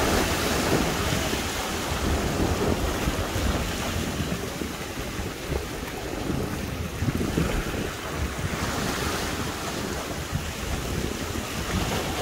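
Sea waves washing and breaking over shoreline rocks, a steady rushing surf that swells and ebbs, with wind buffeting the microphone.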